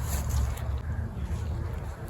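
Low rumble of wind buffeting the microphone outdoors, easing a little after the first half second.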